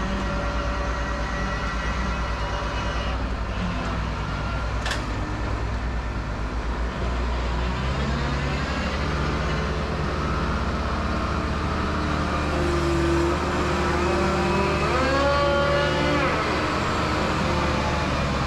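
All-terrain mobile crane's diesel engine running, its pitch rising about halfway through and rising and falling again near the end as the engine is revved for the hydraulics. A single short, sharp click comes about five seconds in.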